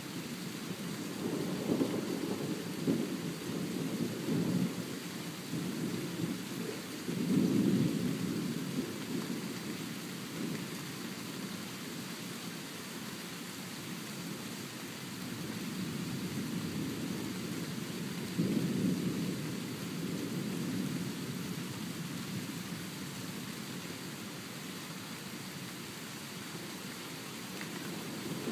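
Thunder rumbling in long rolls over a steady hiss of rain. The rumbles are heaviest in the first eight seconds, fade, then roll again about two-thirds of the way in.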